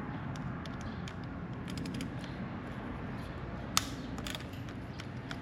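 Light scattered clicks and taps of a small hand screwdriver and its bits being handled and fitted, with one sharper click a little before four seconds in.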